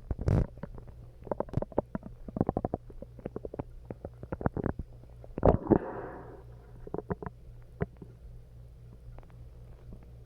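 Stomach growling and gurgling from an upset stomach: a quick run of short pops and bubbling gurgles, with the loudest burst and a longer gurgle about five and a half seconds in, thinning to occasional pops near the end.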